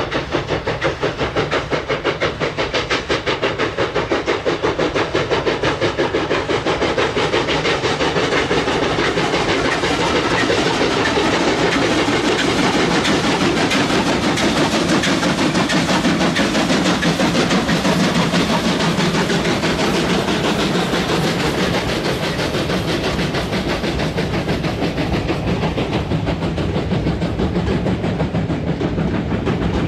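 Two steam locomotives working hard together, their exhaust beating rapidly and steadily. It grows louder as the engines come past, loudest a little past the middle, then eases as the wagons and coaches roll by.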